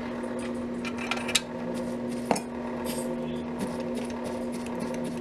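Light metallic clinks and scrapes of a soldering iron tip being cleaned and dipped in tip-tinning paste, with two sharper clicks in the first half. A steady low hum runs underneath.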